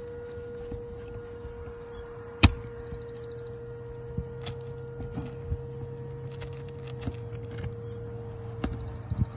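Hand brace being cranked to drive a bolt through an IronRidge FlashFoot2 roof mount into a rafter. Scattered clicks and knocks of the metal tool come through, with one sharp knock about two and a half seconds in, over a steady hum.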